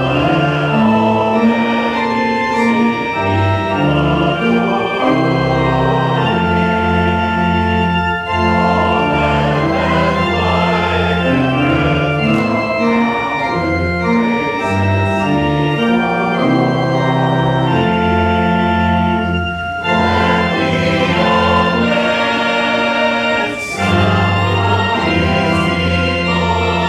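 Church organ playing a hymn in sustained chords over a moving bass line, with three brief breaks between phrases.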